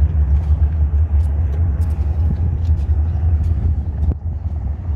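Wind buffeting the microphone: a loud, steady low rumble that wavers in strength, with a few faint clicks.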